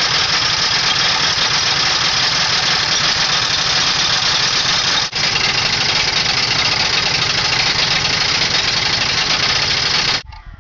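Electric drill spinning a socket on a long swing-arm pivot bolt, running at a steady whir while it backs the bolt out of the frame. The bolt spins freely in its nut and is being worked outwards as it turns. The drill pauses for a moment about halfway and stops abruptly near the end.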